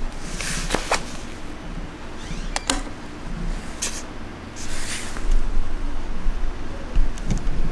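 Sharp plastic clicks as the two halves of a Tesla Model S key fob are pressed and snapped back together, then a click as the fob is set down on a tabletop. A low rumble rises over the second half.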